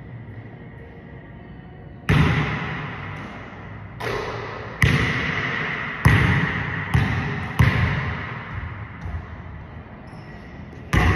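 A basketball bouncing on a hardwood gym floor: several sharp thuds a second or so apart, coming closer together in the middle. Each thud rings out with a long echo in the big hall.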